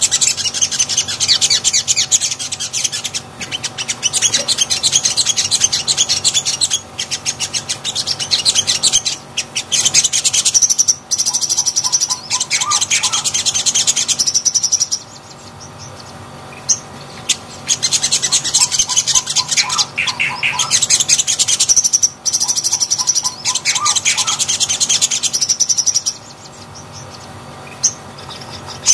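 Sunbird singing: long bouts of rapid, high twittering song, with a short lull about halfway and another near the end.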